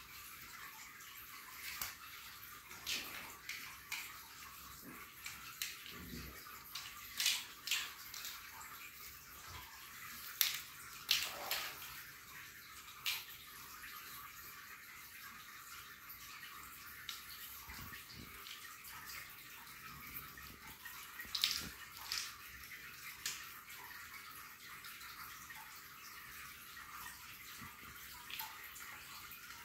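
Scattered light clicks and clatters of small plastic Lego bricks and a plastic bottle being batted about by playing kittens on a tiled floor, irregular and sparse over a steady hiss.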